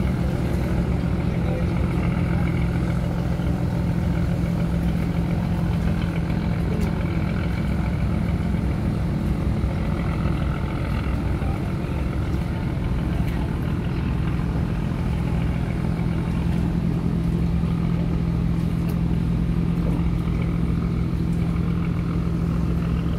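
Large boat diesel engine running steadily under way, a low, even drone that holds the same pitch throughout.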